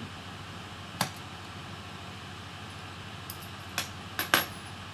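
A few light clicks and clinks of small laptop screws and a screwdriver being handled and set down on a tabletop: one about a second in, then a quick cluster near the end, the last the loudest. A steady low hum runs underneath.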